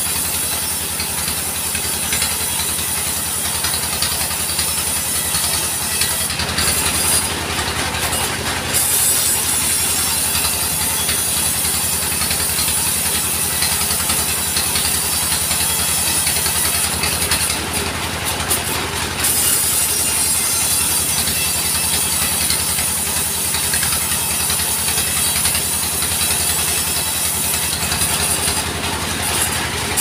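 Portable sawmill running steadily under an engine, its saw blade cutting through a log with a constant high hiss. The hiss thins out briefly about three times.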